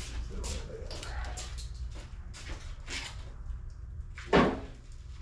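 Rummaging and handling of shop items: scattered light clicks and scrapes, then a single louder clunk a little over four seconds in.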